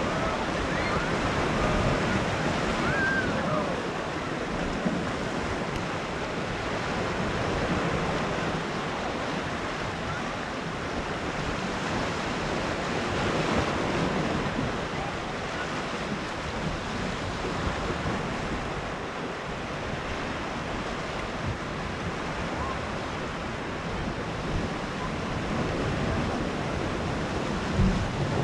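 Sea waves washing onto a beach, a steady surf with gentle swells in loudness.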